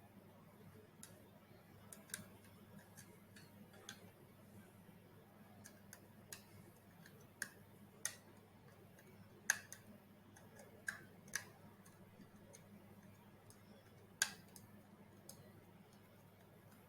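Scattered light clicks and taps, about a dozen at irregular intervals, from robot head parts being handled and fitted together, over a faint steady low hum.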